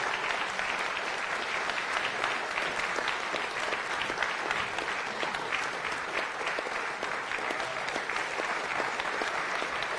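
Audience and stage guests applauding steadily, a dense patter of many hands clapping.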